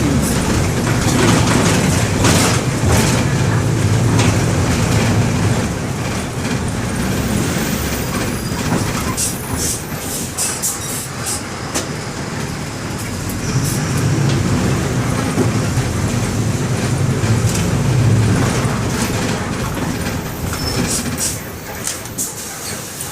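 Mercedes-Benz OM-924 LA four-cylinder inline diesel engine of an OF-1721 bus chassis running under way, heard from inside the bus, its note rising and falling with the throttle and dying down over the last few seconds, with short rattles and clicks over it.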